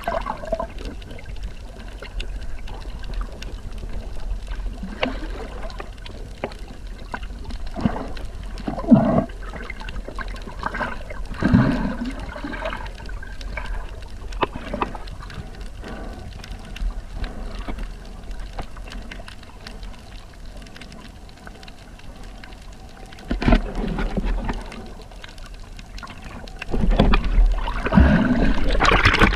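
Sea water splashing and gurgling in irregular bursts over a low rumble, louder near the end.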